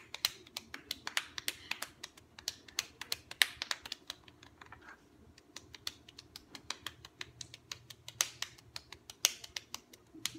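Rapid open-hand slaps on bare cheeks, both hands smacking the face over and over at about five to six sharp slaps a second, keeping up a steady pace.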